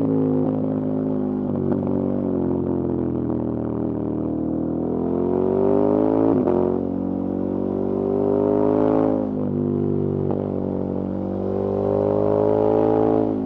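KTM 1290 Super Adventure S V-twin engine pulling through the gears: its pitch climbs, drops sharply at an upshift about six seconds in and again about nine seconds in, then climbs once more near the end.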